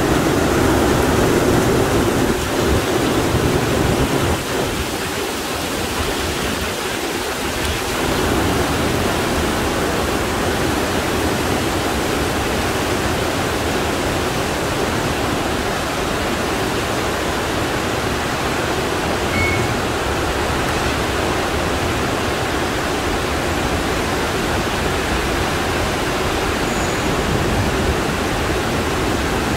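Torrential monsoon rain pouring down, a dense, steady rush of water that eases slightly for a few seconds about five seconds in.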